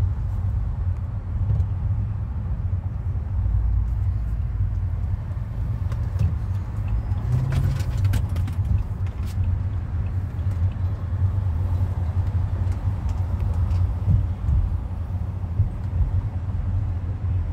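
Steady low road rumble inside a car's cabin while it drives in freeway traffic, with a short run of light clicks about halfway through.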